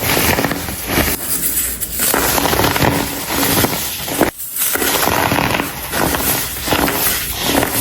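Blocks of dried baking soda crumbled and crushed by hand, giving a dense crackling crunch. It comes in handfuls, with a brief break about four seconds in.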